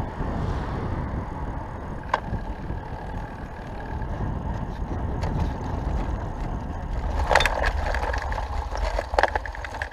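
Wind buffeting the microphone and road rumble from a camera riding on a road bike at speed. Sharp rattles and clicks come about two seconds in, in a cluster around seven to eight seconds, and again just after nine seconds, as the bike runs over rougher brick and cobbled paving.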